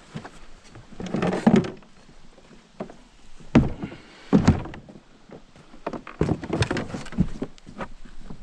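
A boat's hull knocked and bumped by fishing gear and movement aboard: a string of irregular thunks and knocks, the loudest about three and a half and four and a half seconds in, with light rustling between them.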